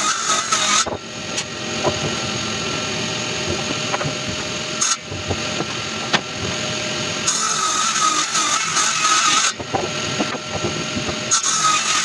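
Table saw ripping a red eucalyptus beam. Its steady high whine turns lower and rougher for two long stretches while the blade is in the wood, and comes back between them and near the end.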